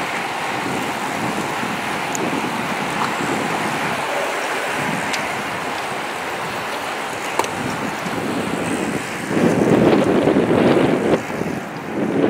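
A bunch of road bicycles passing on tarmac, with a steady rush of tyres and drivetrains. Wind buffets the microphone, most heavily from about nine to eleven seconds in.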